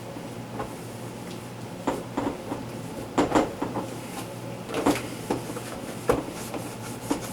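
Irregular knocks and clatters of hands and a wet towel bumping against the plastic walls, seals and shelves of a refrigerator being wiped down, over a steady low hum.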